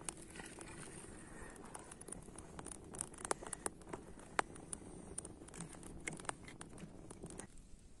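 Wood fire crackling under a cooking pot, with irregular sharp pops over a low steady rush. The crackling stops abruptly near the end.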